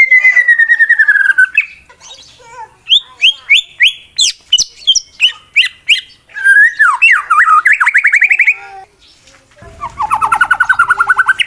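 A male white-rumped shama (murai batu) singing loudly in challenge to a rival male: a falling whistle, a run of sharp downward-swept notes, then rapid trills.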